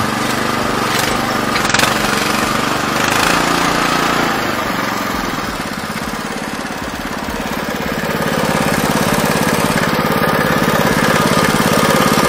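Single-cylinder Lifan petrol engine of an Oka walk-behind tractor running steadily under way, with a couple of knocks in the first two seconds. Its note drops about halfway through, then rises and holds louder to the end.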